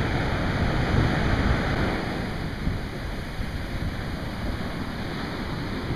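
Ocean surf: big waves breaking and foamy wash surging up the beach, with wind rumbling on the microphone.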